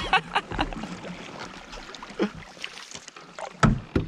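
Canoe paddling: the paddle pulling and dripping through the water, with scattered light knocks. Two louder low thumps come a little before the end.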